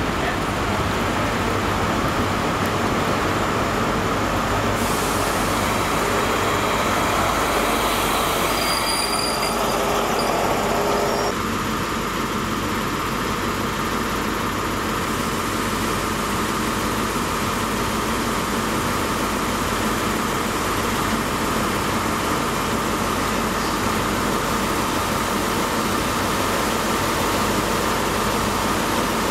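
High Speed Train with Class 43 diesel power cars running along the platform: steady engine and rail noise, with a brief high squeal of wheels or brakes about nine seconds in, then Mark 3 coaches rolling past.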